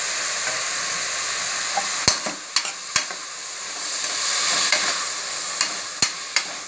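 Chopped onions and tomatoes sizzling in hot oil in a pressure cooker while a steel ladle stirs them. From about two seconds in, the ladle clinks and scrapes against the pot several times.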